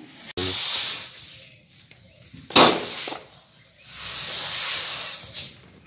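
Wheat grain mixed with dark fertiliser granules poured from a height onto a heap, making a rushing hiss of falling grain in three goes. A sudden rush comes about half a second in and fades, a sharp clattering burst follows about two and a half seconds in, and a hiss swells and dies away near the end.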